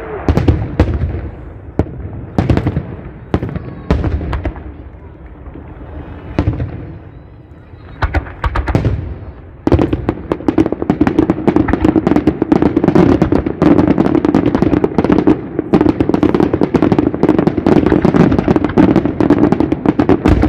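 Fireworks display at close range: aerial shells bursting in separate loud booms, one every second or so, then about ten seconds in a dense barrage of rapid crackling and popping takes over.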